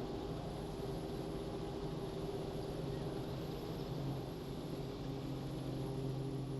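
Robinson R44 helicopter's engine and rotors running steadily as it comes in to land, with a slight change in tone about four to five seconds in.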